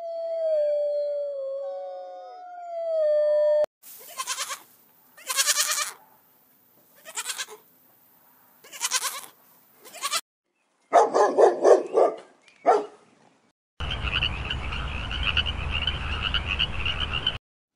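A sequence of animal calls. First, a wolf howling in two long, overlapping, slightly falling notes. Then a goat kid bleating about five times, followed by a short cluster of further animal calls. Last, a frog croaking steadily for a few seconds before it cuts off.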